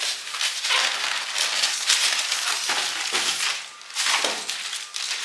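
Packaging rustling and crinkling in uneven surges as the massager's main unit is handled and taken out of its box, dipping briefly a little before four seconds in.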